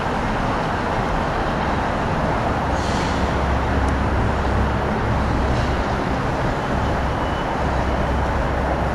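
Push-pull commuter train pulling away from the station platform, a steady rumble of wheels and engine, with two brief hisses about three and five and a half seconds in.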